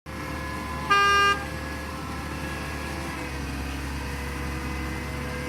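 A truck horn sounds once, briefly, about a second in, over the steady running of a concrete pump truck's engine.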